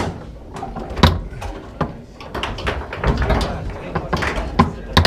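Foosball play: sharp knocks and clacks as the ball strikes the plastic men and the table's walls and the rods bang, loudest about a second in and near the end, with talk in the background.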